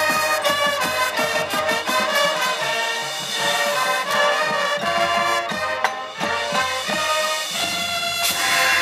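High school marching band playing live: brass sustaining full chords over quick percussion strikes, with a crash near the end.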